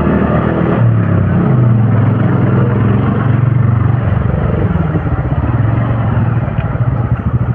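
Small motor scooter engines running under load on a steep uphill climb, with a steady low engine note that weakens about five seconds in as the road levels out.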